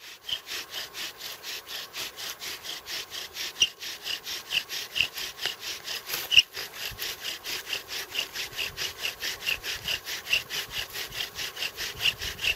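Bow drill in use: the wooden spindle grinds in the fireboard's hole as the bow is stroked rapidly back and forth, an even rasping rhythm with a squeak on many strokes. This is the steady drilling that builds heat and dark wood dust toward an ember.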